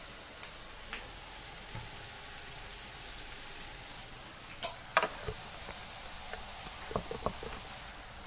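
Chicken pieces with capsicum and onion sizzling steadily in a wok over a gas flame, with several sharp clicks and clinks, most of them around the middle and near the end.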